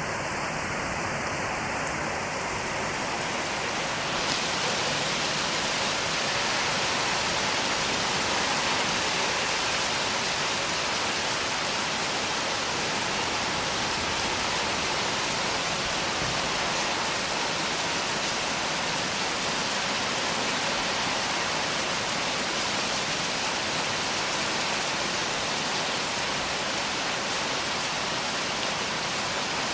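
Heavy cloudburst: dense rain falling on trees and a field in a steady, even hiss, growing slightly fuller about four seconds in.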